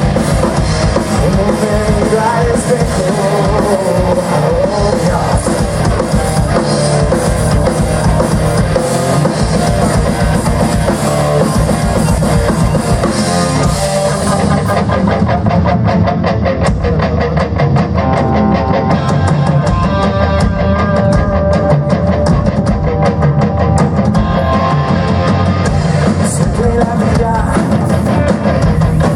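Rock band playing live: drum kit, electric guitars and bass, loud and steady. About halfway through the high hiss thins out while the drums keep a fast, even beat.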